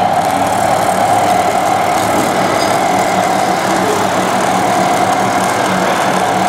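Radio-controlled construction models running: a steady engine-like drone with a constant mid-pitched whine over it.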